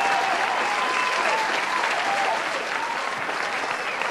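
Crowd applauding and cheering: steady dense clapping with voices whooping over it.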